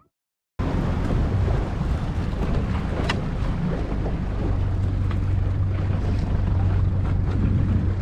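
Wind buffeting the microphone on a small boat under way on open water, with water noise beneath. It starts abruptly after a moment of silence, and a low steady hum comes in about halfway through.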